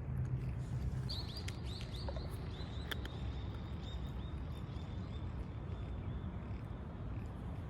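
A small bird chirping in a quick run of short, high notes for about four seconds, starting about a second in, over a steady low background rumble.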